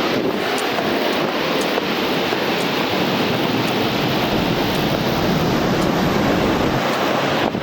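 Waterfall water pouring and splashing: a steady, dense rush of falling water with no let-up.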